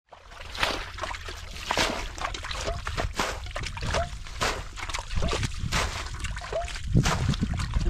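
Shallow water splashing and sloshing in irregular strokes, as in hand fishing in a drained wetland.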